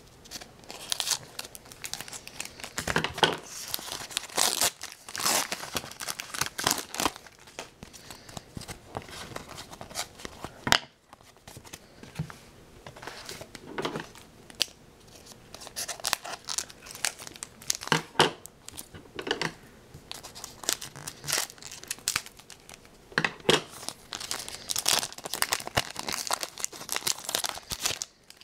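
Wrapper of a Zenith hockey card pack crinkling and tearing as it is opened, in irregular bursts of crackling, with one sharp click near the middle.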